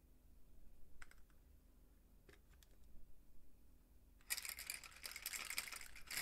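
A few separate light clicks, then from about four seconds in a rapid run of small clicks and clatter.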